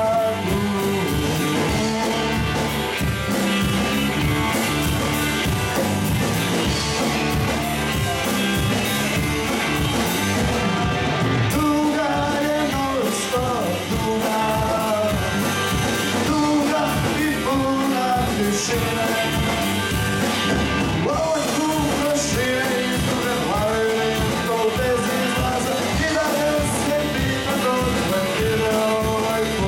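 Rock band playing live, with a singer over a steady beat.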